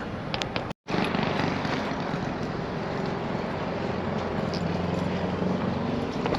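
Steady engine and road noise of a vehicle being driven, with a brief dropout to silence just under a second in.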